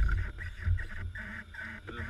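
Light aircraft with its engine dead and propeller stopped, rolling to a stop over loose sand: low rumbling and bumps from the wheels and airframe, loudest at the start, with a honking tone that comes and goes.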